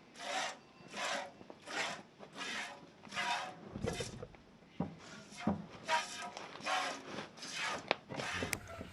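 A cow being milked by hand: rhythmic squirts of milk into a bucket, about one and a half a second, with a short pause about halfway through.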